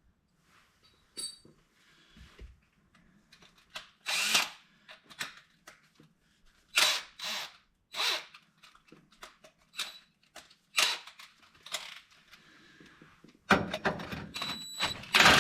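Electric drill run in short trigger bursts, then held on and drilling steadily from about 13 seconds in, enlarging a hole in metal in stages with a mid-size bit toward 1/2 inch for a rivet nut.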